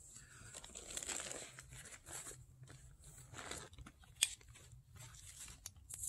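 Irregular rustling and crinkling handling noise, with one sharp click about four seconds in.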